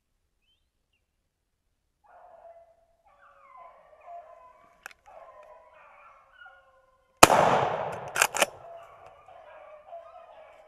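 Beagles in full cry, their baying starting about two seconds in and carrying on throughout. About seven seconds in comes a single loud blast from a Benelli Nova pump shotgun, followed a second later by two sharp clicks.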